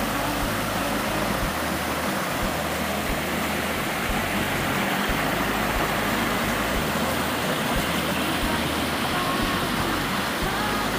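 Steady rushing of a valley stream's flowing water.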